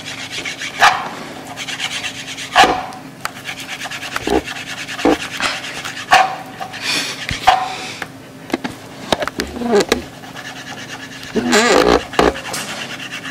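Small kitchen knife slicing raw bacon strips, tapping and scraping on a plastic cutting board in short, irregular strokes.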